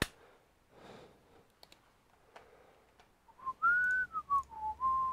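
A sharp click at the start, then a person whistling a short wandering tune of a few notes, starting about three seconds in.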